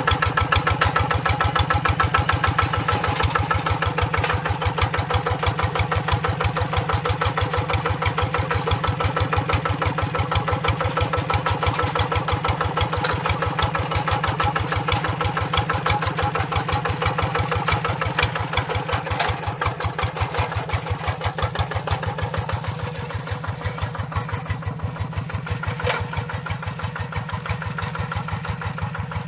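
Single-cylinder diesel engine of a two-wheel hand tractor running steadily, a fast even chugging. It gets a little quieter in the last several seconds.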